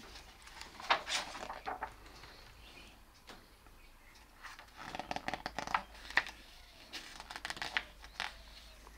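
Pages of a large glossy art book being turned and handled, the paper rustling in short bursts about a second in, again around five to six seconds in, and once more near the end.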